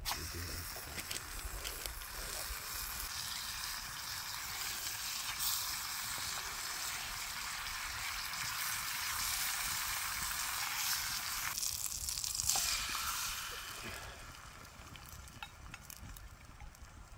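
Food frying in a hot pan: a steady sizzle that starts suddenly and dies away about fourteen seconds in.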